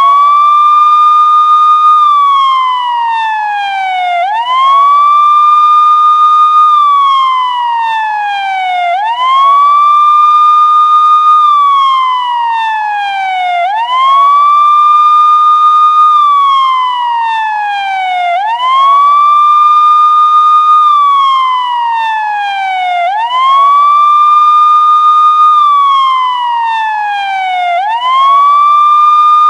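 Police car siren sounding a wail. Each cycle rises quickly to a high pitch, holds there for about two seconds, then falls slowly, repeating roughly every four and a half seconds.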